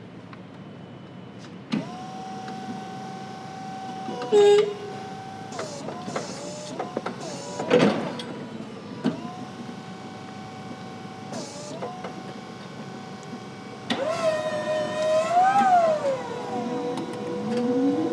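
Electric motors of a Raymond ESD-DR25TT stand-up double reach truck whining steadily in several stretches with short breaks, the pitch rising and falling near the end, with a few sharp clunks along the way, about four seconds in and again around eight seconds.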